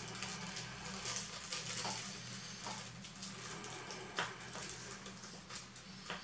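A small plastic bag of cheburashka lead sinkers being handled: faint rustling of the bag with a few short clicks as the lead weights knock together, over a low steady hum.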